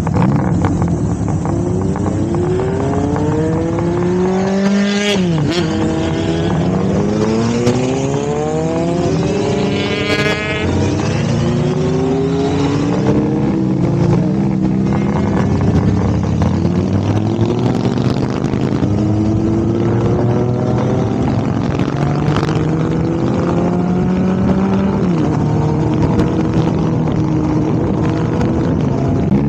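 Motorcycle engine pulling hard through the gears while riding: its pitch climbs, drops back at each shift and climbs again, several times over, with wind noise.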